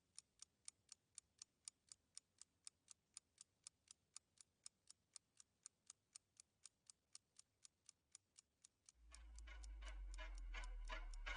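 Faint, steady clock ticking, about four sharp ticks a second. Near the end, low music with a deep bass drone fades in under it.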